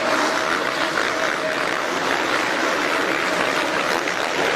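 Steady indoor supercross arena din: a crowd cheering mixed with dirt bike engines on the track, blending into an even wash of noise.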